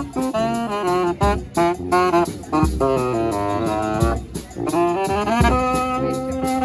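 Live street brass band playing: several horns sound together in harmony over low drum beats.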